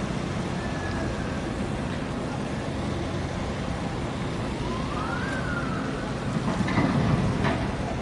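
Steady low engine rumble mixed with outdoor noise, with a faint siren-like tone rising and falling around the middle. The noise swells louder near the end.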